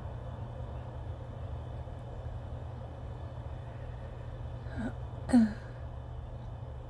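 A woman makes a short voiced catch of breath through the nose and throat, falling slightly in pitch, about five seconds in, just after a fainter one. It is the kind of sound made while working toward a sneeze. A steady low hum runs underneath.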